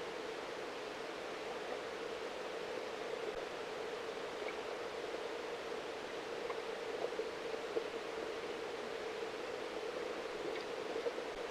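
Steady muffled underwater noise picked up by a submerged camera, centred on a low hum-like band, with a few faint ticks.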